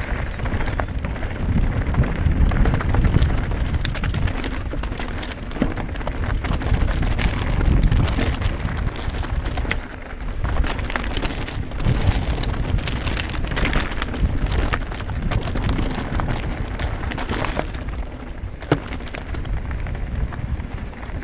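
Mountain bike riding fast downhill over a loose, stony trail: the tyres crunch on gravel and the bike rattles, with many sharp clicks over a steady rush of wind on the microphone.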